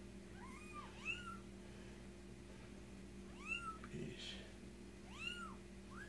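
A young kitten mewing several times in short, high cries that rise and fall in pitch as it is bathed for fleas, over a faint steady low hum.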